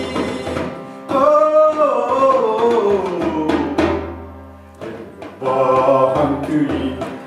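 Live acoustic ensemble of clarinet, harmonium and hand-held frame drum: a long melodic line sinks slowly in pitch over a low harmonium drone, fades, and from about five seconds in the frame drum comes in and several voices sing together.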